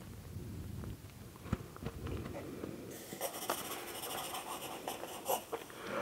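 Soft close-up scratching and rustling with a few light ticks, growing crinkly and busier about three seconds in.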